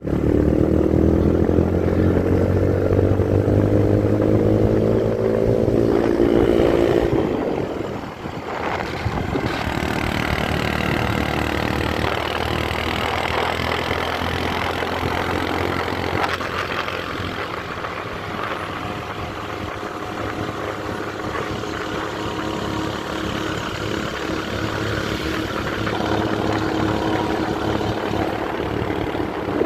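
Intercity bus's diesel engine heard through a loud aftermarket 'ngorok' (snoring) racing exhaust, pulling hard with its pitch rising for about seven seconds, then easing off about eight seconds in. It then runs on more steadily and pulls harder again near the end.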